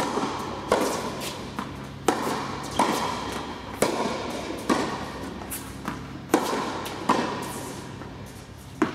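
Tennis rally: the ball is struck by rackets and bounces on the court, giving sharp pops about once a second, each echoing in the indoor hall.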